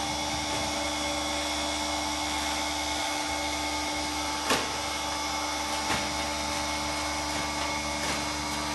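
Lipovak Kar 650 gas-flush vacuum packing machine running, its vacuum pump making a steady hum. There is a sharp click about four and a half seconds in and a fainter one about a second and a half later.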